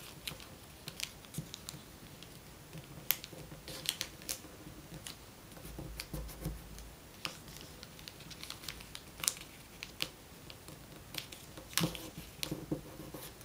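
Origami paper being folded and creased by hand: soft, irregular rustles and crisp ticks as the folds are pressed flat.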